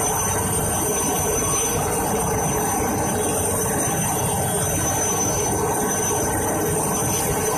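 A steady mechanical drone with a constant hum, like an engine running at an even speed.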